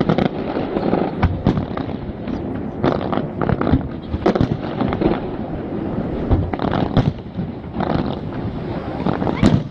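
Fireworks display: aerial shells bursting one after another, many sharp bangs and crackles over a continuous rumble, with a loud crack near the end.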